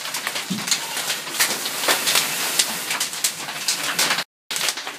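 Live training fire burning, a steady rushing noise with dense crackling. The sound cuts out completely for a moment near the end.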